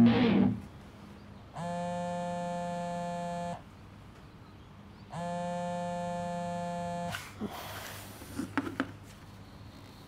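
Mobile phone vibrating on a wooden table with two long buzzes about a second and a half apart, an incoming call ringing unanswered. Near the end come a few light knocks and rustles as the phone is handled.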